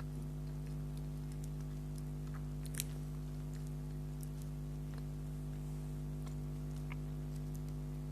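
Quiet eating sounds: soft chewing with scattered small mouth clicks as cake is eaten, one sharper click a little under three seconds in, over a steady low hum.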